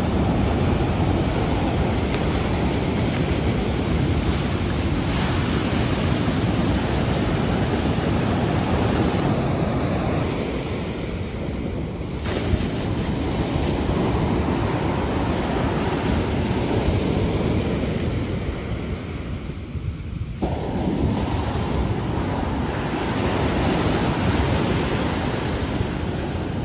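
Heavy surf from a hurricane swell breaking and washing up the beach: a dense, steady rush of water noise. It changes abruptly twice, about twelve and twenty seconds in, where shots are cut together.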